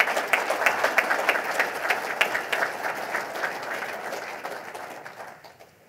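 Audience applauding: many hands clapping, dying away over about five seconds.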